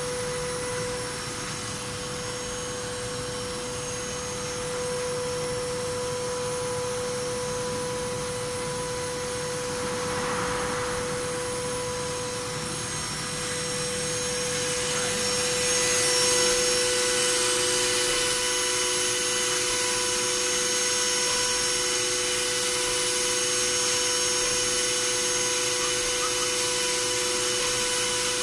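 CNC milling machine running: a steady high whine over constant hiss. From about halfway through, the end mill cutting a metal block under flood coolant adds a brighter, slightly louder hiss.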